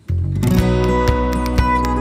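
Background music, led by a plucked guitar, starting suddenly with a steady beat of about two strokes a second.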